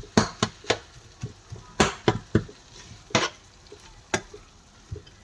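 A utensil stirring chicken liver and tomatoes in a frying pan, knocking and scraping against the pan at an irregular pace, over a faint sizzle of frying. The sharpest knocks come about two, three and four seconds in.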